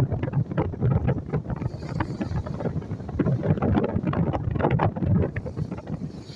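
Wind buffeting the phone's microphone in uneven gusts over the rush of spray and water along the hull of a boat under way at sea.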